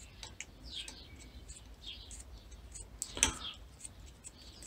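A bowstring serving jig being turned by hand around the string, winding serving thread onto it: soft repeated ticks and short scratchy swishes of the thread and jig, with one sharper click a little past three seconds in.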